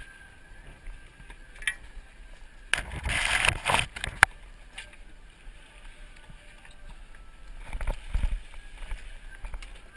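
A hooked mahi-mahi thrashing and splashing at the surface beside the boat: a loud splashy stretch about three seconds in, followed by a single sharp knock. Near the end there is another heavy splash as the fish is gaffed. A low hum runs underneath.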